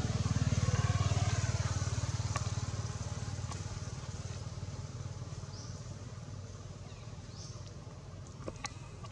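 A motor vehicle engine, loudest at the start and fading steadily as it moves away. A couple of faint, short high chirps come in the second half.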